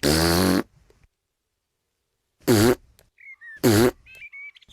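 A cartoon toddler piglet hiccuping three times, each a short, loud 'hic'. The first comes at the start and the other two come close together after a pause of about two seconds. Faint little squeaks fall between the last two.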